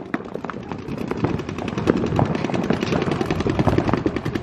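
Paintball markers firing rapid, overlapping streams of shots, a dense run of sharp pops many times a second.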